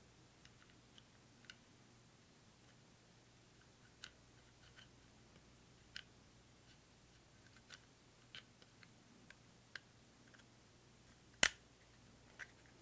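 Scattered light clicks and ticks of small metal pins and parts being worked into a Glock 19's polymer frame by hand, with the sharpest click near the end.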